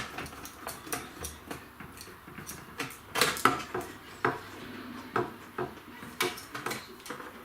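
Phillips screwdriver working the screws out of a CCTV DVR's case: irregular light clicks and clinks, the loudest a cluster about three seconds in.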